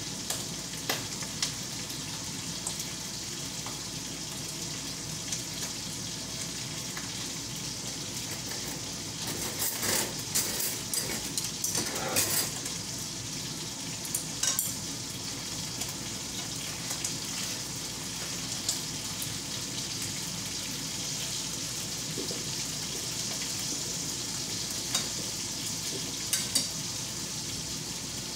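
Food sizzling steadily in a frying pan on the stove, with scattered clicks and scrapes of chopsticks stirring it, a burst of them about ten seconds in and a few more near the end.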